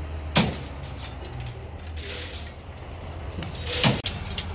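Steel rebar being handled and tied with wire: two sharp metallic clanks, about half a second in and near the end, with lighter metallic clicking between them, over a steady low hum.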